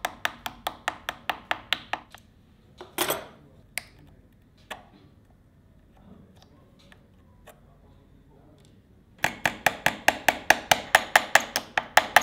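Small flat blade working rapidly against the wooden head of an antique brace: quick runs of short, sharp strokes, about seven a second, at the start and again near the end. Between the runs come one longer scrape and a few single clicks.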